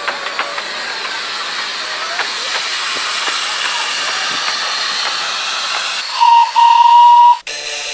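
Miniature steam locomotive passing with its train: a few clicks of wheels over the rails, then a swelling hiss of steam, then a loud steam whistle, a short toot followed by a longer one of about a second. Music cuts in suddenly near the end.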